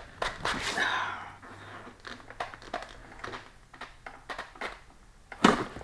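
Scattered metallic clicks and scrapes of a wrench turning a screw extractor counterclockwise in a stripped seat-slider bolt, working to make it grab. A sharp clack near the end is the loudest sound.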